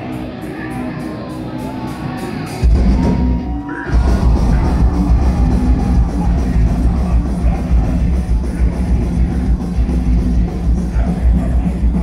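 Metal band playing live, loud and close. After a quieter passage with a voice over it, the full band crashes in hard about three seconds in, breaks for a moment, then drives on with heavy drums and distorted guitars.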